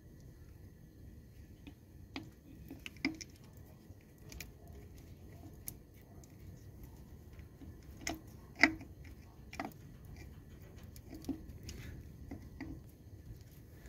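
Hand tools and parts being handled during engine work: scattered light clicks and knocks at irregular intervals, the loudest about eight and a half seconds in, over a low steady hum.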